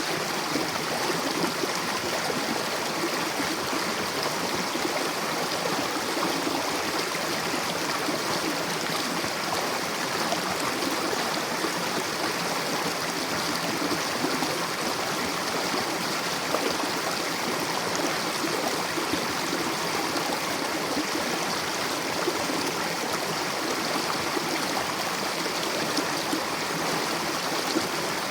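Mountain river rushing steadily over rocks: a continuous, even water noise.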